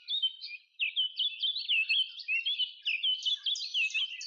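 Birds chirping in a quick, continuous run of short, high notes.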